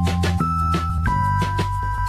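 Background music with a steady beat and held synth notes.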